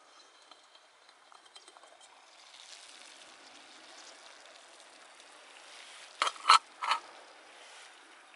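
Low hiss and faint crackle of a small wood fire in a camp stove, with three sharp knocks in quick succession about six seconds in.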